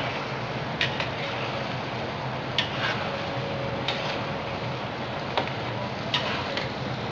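Metal spatula clinking and scraping against a black karahi as mutton is stirred in bubbling oil and gravy, with irregular sharp clinks over a steady sizzling hiss.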